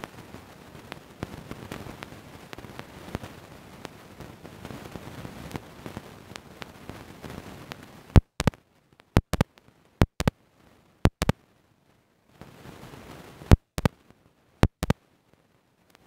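A steady noisy din with faint clicks. About eight seconds in, the sound cuts out to dead silence, broken by sharp pops in quick pairs: the recording dropping out and glitching.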